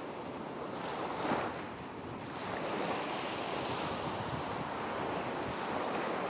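Ocean surf: waves washing in a steady rushing noise that swells and eases, with a slightly stronger surge about a second in.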